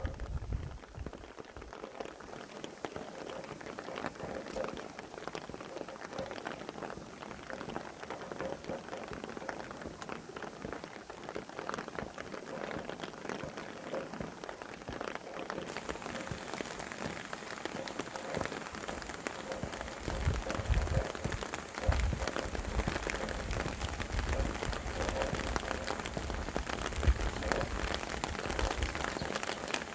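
Steady rain falling, many separate drops striking surfaces. Low gusts of wind rumble in about two-thirds of the way through and again near the end.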